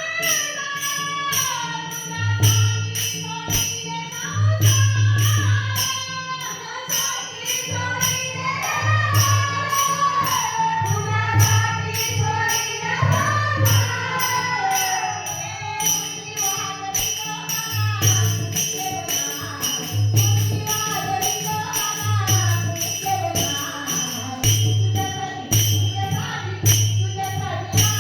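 Marathi gavlan, a devotional folk song, sung by a woman over a steady jingling percussion beat with a pulsing low accompaniment.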